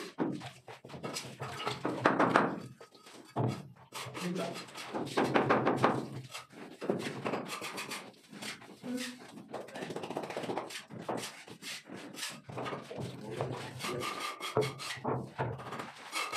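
Wood being scraped and knocked on a teak door frame: long rough scraping strokes in the first six seconds or so, then shorter scrapes and scattered wooden thunks.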